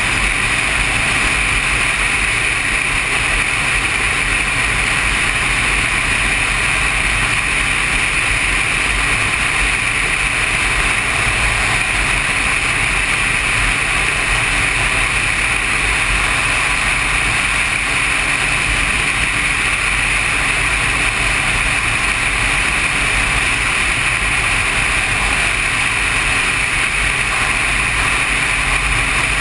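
Motorcycle cruising at a steady road speed: a constant rush of engine and wind noise that does not change.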